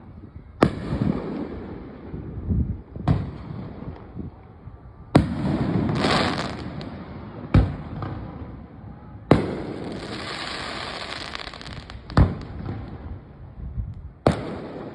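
Aerial fireworks shells bursting in the sky: seven loud bangs spaced two to three seconds apart. Two of the bursts, about five and nine seconds in, trail off into a couple of seconds of crackling hiss.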